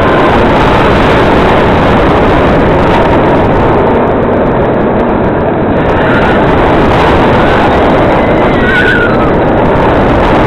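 Steady loud rush of wind over the microphone mixed with the rumble of a Georgia Scorcher train, a Bolliger & Mabillard stand-up steel roller coaster, running along its track.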